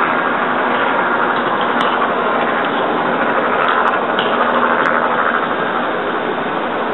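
Helicopter flying overhead, its engine and rotor making a steady noise.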